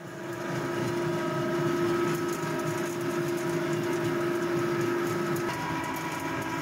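Ring-die pellet mill running under load, pressing a chestnut wood chip and coffee grounds mix into pellets: a steady hum with a whine, its tone changing slightly about five and a half seconds in.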